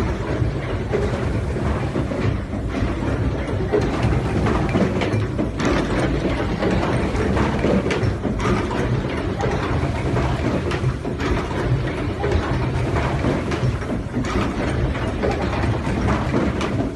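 Fully automatic crimping machine for 16A plug inserts running: a continuous mechanical clatter of many small irregular clicks over a steady low hum.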